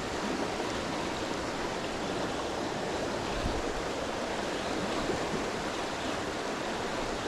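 Fast-flowing creek water rushing, a steady, even noise.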